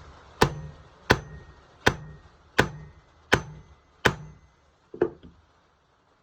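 Hammer striking a screw extractor to seat it in a stripped screw head: seven even metal-on-metal blows about three-quarters of a second apart, each with a short ring, ending with a lighter tap about five seconds in.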